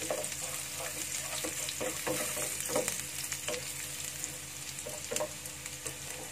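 Chopped shallots and garlic sizzling in oil in a non-stick frying pan, with a steady hiss, while a wooden spatula stirs them with irregular short scrapes and taps against the pan. This is the sauté stage, cooking the aromatics until fragrant.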